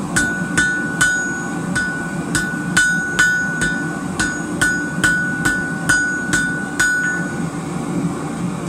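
Hand hammer striking hot rebar on an anvil, a steady run of blows at about two to three a second, each with a short metallic ring; the blows stop about a second before the end.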